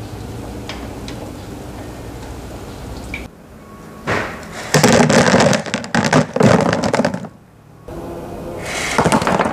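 Potato donuts deep-frying in hot oil in a wok: a low, steady sizzle, then loud sizzling and crackling from about four seconds in as more raw dough meets the oil. The sizzle breaks off briefly near the end and picks up again.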